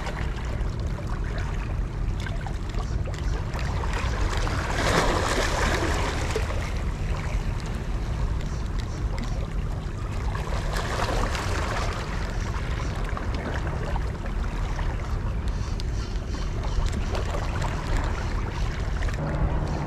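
Small sea waves washing against shoreline rocks, swelling louder about five seconds in and again about eleven seconds in, over a steady low wind rumble.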